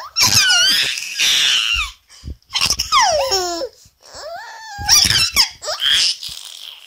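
A baby laughing in several bursts of high, squealing laughs that slide down in pitch, with short pauses between.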